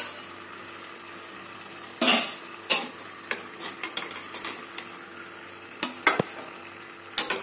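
A metal spatula and a steel plate clinking and scraping against a stainless steel steamer pan while steamed rolls are lifted out: a series of sharp clinks, the loudest about two seconds in.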